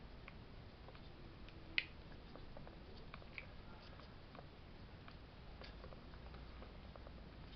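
Faint, scattered clicks and light taps of small parts and tools being handled, with one sharper click a little under two seconds in.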